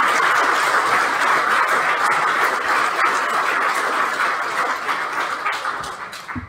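Audience applauding: steady dense clapping that dies away near the end.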